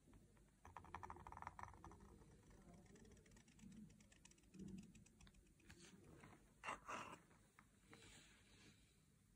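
Faint scratching of a reed pen (qalam) nib on paper while writing calligraphy strokes: rapid fine ticks, with the loudest short scratchy burst about seven seconds in.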